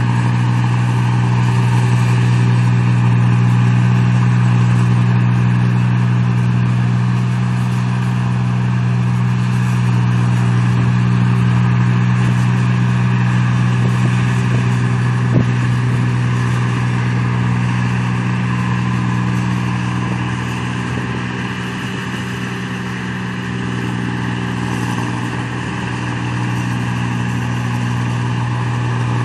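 A paddy machine's engine running at a steady speed, with a constant low hum. A single click comes about halfway through, and the engine eases slightly about 21 seconds in before picking back up.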